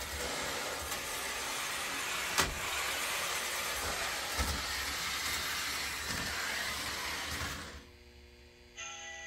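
Lionel O-27 model steam locomotive and train running on three-rail track, a steady rumbling clatter with a couple of sharp clicks. The running sound drops away suddenly near the end, and a short pitched tone with several notes starts just before the close.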